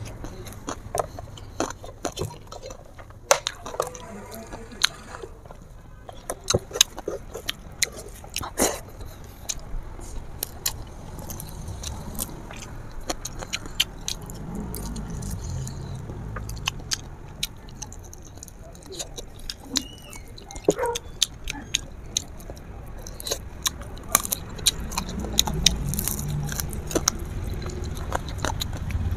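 Close-miked eating sounds of a person chewing and sucking on spicy chicken feet: wet smacks, lip noises and frequent short, sharp clicks at an irregular pace.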